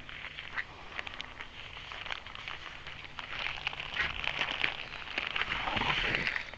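Plastic zip-top bag crinkling and rustling as it is handled, with many small crackles and clicks, louder in the second half.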